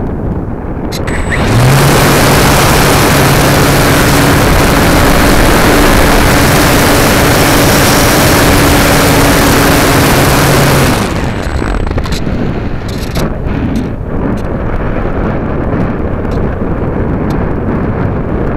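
Wind rushing over a camera on a Radian electric powered glider. About a second and a half in, the electric motor and propeller start and run at a steady low pitch for about nine seconds, then cut off abruptly, leaving the wind again.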